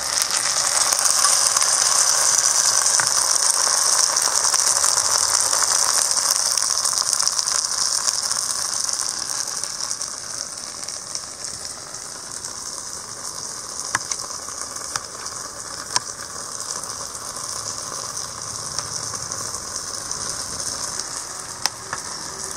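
Hot oil sizzling and crackling in an iron kadai as boiled moong dal is added to frying onions; loud at first, it fades after about ten seconds. Later a few sharp taps of a metal ladle on a steel plate while boiled potatoes are mashed.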